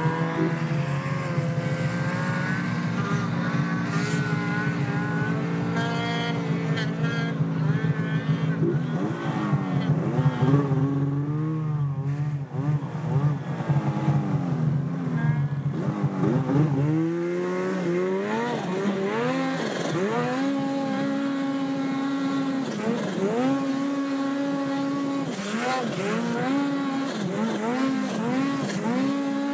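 Two-stroke mountain snowmobile engine running at high revs, heard on board while climbing. It holds a steady high pitch at first, then from about halfway the revs rise and fall every second or two as the throttle is worked.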